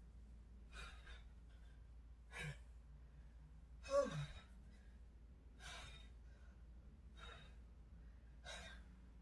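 A woman breathing hard with exertion, a forceful exhale about every one and a half seconds in time with side-to-side Russian twists. About four seconds in comes one louder voiced grunt that falls in pitch.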